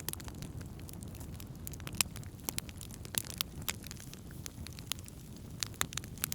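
Wood campfire crackling: irregular sharp pops and snaps, one sharper pop about two seconds in, over a low steady rumble.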